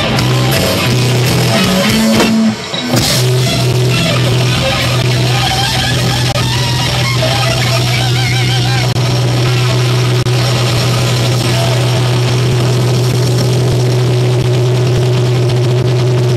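Live rock band with distorted electric guitar and bass holding one loud sustained low note as a drone, with wavering guitar tones above it. There is a brief break about two and a half seconds in.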